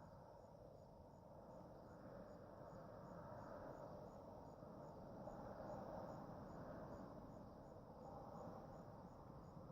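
Quiet night ambience: a cricket chirping steadily, about two chirps a second, over a faint low rumble that slowly swells and fades.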